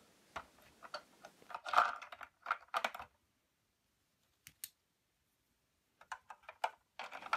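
Small plastic toy figures tapping and clicking against a Fisher-Price toy SUV's plastic seats and doors as they are set in place. The light clicks are scattered, with a quiet gap in the middle broken by a couple of clicks.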